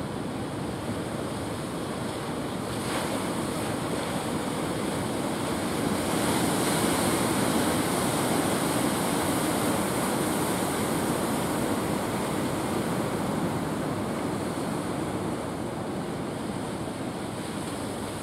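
Ocean surf breaking on a beach, an even rushing wash. It swells louder about six seconds in as a large wave breaks, then eases off.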